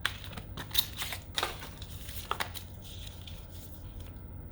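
Paper inserts and small accessories from a smartphone box being handled: a few short clicks and rustles in the first two and a half seconds, over a faint low hum.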